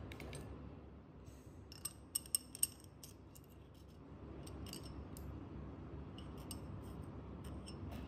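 Metal tweezers clicking and tapping against a glass goblet and seashells as the shells are set into gel wax, with scattered light clicks and four sharper clinks in quick succession about two seconds in.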